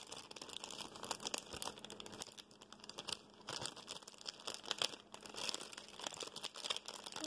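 Clear plastic bookmark sleeve crinkling and rustling as it is handled and opened, in quick irregular crackles, with a quieter stretch about three seconds in.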